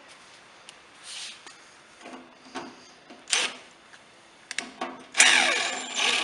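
Cordless driver running screws into a pellet grill's sheet-metal controller panel. It comes in several short bursts, then a longer, louder run near the end whose pitch drops.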